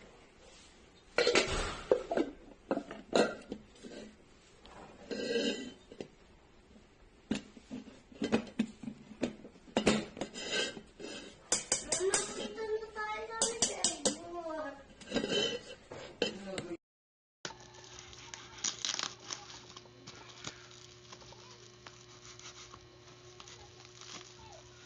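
Hard clicks, knocks and clinks of parts of an electric meat grinder being handled, irregular and loudest near the start. After a short gap, a faint steady hum follows.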